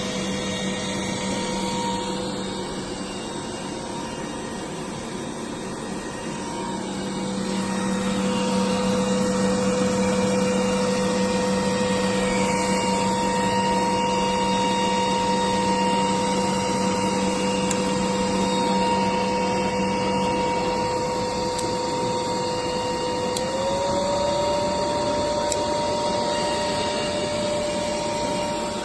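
Lumina CCPF-1700 capacitor charging power supply running on test into a capacitor bank: a steady rush of cooling air with a steady high whine. A low hum drops out about two-thirds of the way through, and the whine steps up slightly in pitch a little later.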